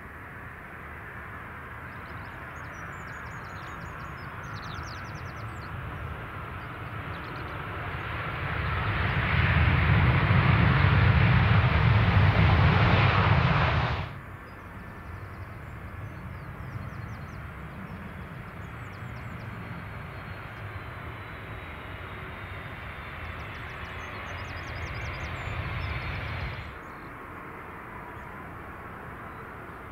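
Jet airliner engines at landing. An Airbus A350-900 just after main-gear touchdown: its engine noise swells to a loud, deep rumble from about 8 seconds in and breaks off suddenly about halfway. Then a Boeing 767-400 on final approach, quieter and steadier and slowly growing louder, breaks off a few seconds before the end, and the quieter engine noise of an Airbus A330-200 flaring over the runway follows.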